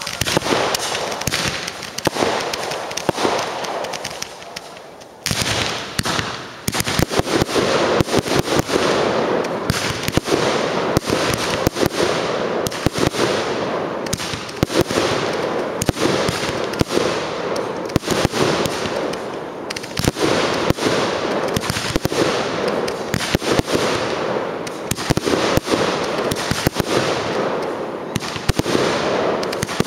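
Fireworks display: a dense, rapid barrage of bangs and crackling shell bursts, easing briefly about five seconds in, then picking up again even thicker.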